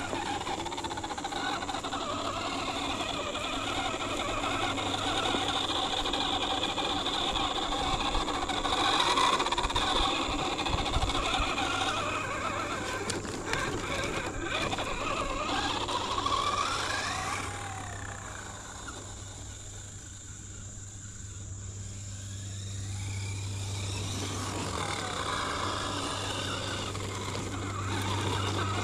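RC crawler's 13-turn Holmes Hobbies Crawlmaster Sport 540 brushed electric motor and gear train whining as it crawls, the pitch rising and falling with the throttle. It eases off for a few seconds a little past the middle, then picks up again.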